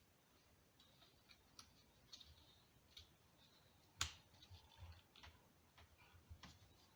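Faint, scattered clicks and taps of small metal parts being handled while reassembling a power steering pump, with one sharper click about four seconds in.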